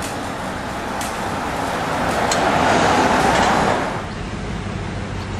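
A motor vehicle passing close by on a city street: its tyre and engine noise swells over about two seconds, peaks, then falls away about four seconds in, over a steady low traffic hum.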